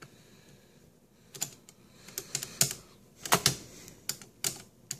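Keys of a 1950s mechanical cash register being pressed to enter an amount: a series of sharp, irregular mechanical clacks, often in quick pairs.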